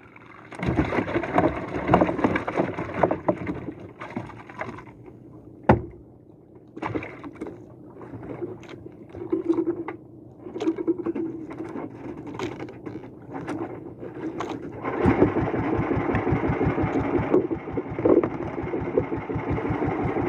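Small engine of an outrigger fishing boat running, rising and falling with a few sharp knocks in the first part, then settling into a steady, evenly pulsing run from about fifteen seconds in.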